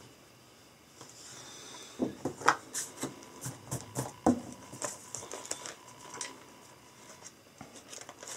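Hands handling a paperback book and a red plastic check sheet on a wooden desk: a run of irregular taps, knocks and rustles starting about two seconds in, loudest in the first few seconds, then pages being flipped near the end.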